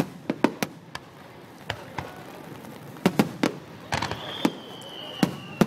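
Fireworks display finale: aerial shells going off in rapid, irregular sharp cracks and bangs. About four seconds in, a long thin whistle starts and slowly falls in pitch.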